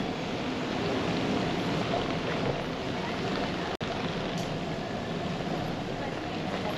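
Steady street noise heard from a moving bicycle: an even rushing haze with faint voices mixed in. The sound drops out for an instant a little under four seconds in.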